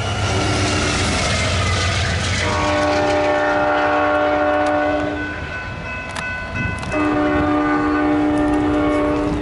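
Amtrak P42DC locomotive's K5LA five-chime air horn sounding over train rumble. The first sounding fades and sags slightly in pitch in the first two seconds. Then come two long blasts, from about two and a half seconds to five, and again from about seven seconds on.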